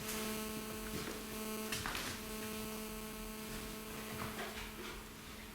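Steady electrical hum with a buzzing stack of overtones and a few faint rustles; it fades near the end.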